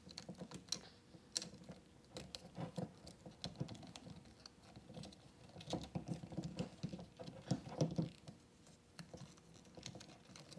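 Irregular light clicks, taps and scrapes of UPS batteries' plastic cases and their wire connectors being handled and stacked on top of each other.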